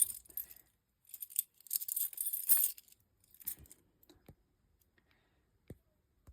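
Handling noise while a fire alarm control panel is being reset: a stretch of rustling and scraping, then a few separate sharp clicks.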